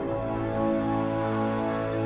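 Logo theme music: a sustained chord held over a low bass note, swelling slightly about halfway in.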